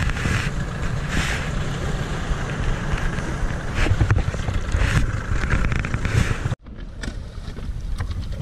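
Small Johnson outboard motor running as an inflatable boat moves off, with wind buffeting the microphone. About six and a half seconds in, the sound cuts off abruptly to quieter wind noise with a few small clicks.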